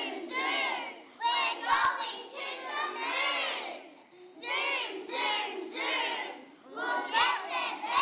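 A group of young children shouting out together in a run of short phrases, with brief pauses about four and seven seconds in.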